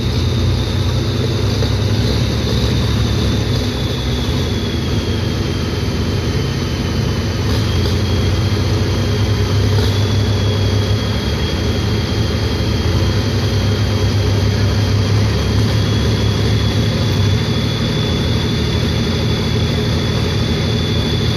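Pulling tractor engine running steadily without moving off: a loud, even low drone with a thin high whine over it that sags briefly about a third of the way in.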